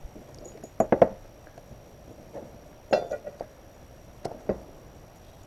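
Small metal bolts and washers clinking together as they are handled and set down: a quick run of clicks about a second in, a ringing clink near three seconds, then a couple of lighter taps. Washers are being slipped onto the mounting bolts.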